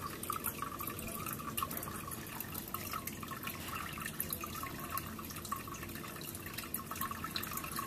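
Aquarium water trickling and dripping with a steady, irregular bubbling patter, as from the tank's filter running.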